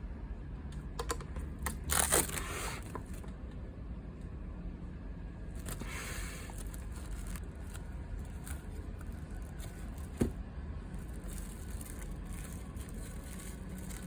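Handling noises from food preparation: two brief scraping or rustling sounds and a single sharp knock about ten seconds in, over a steady low hum.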